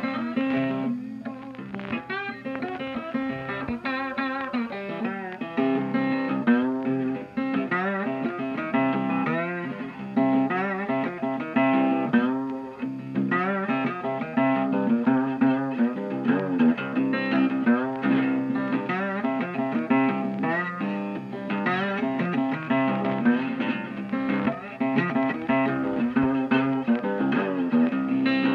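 Background music played on guitar: plucked notes with some bending pitches, running steadily.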